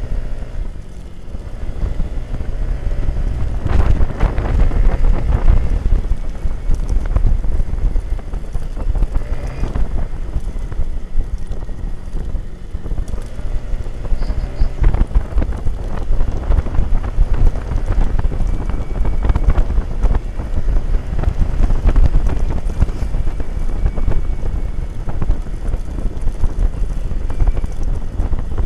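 Wind rushing over the microphone of a camera mounted on a moving motorcycle, over a low rumble of engine and road. It gets louder about three to four seconds in and then holds steady.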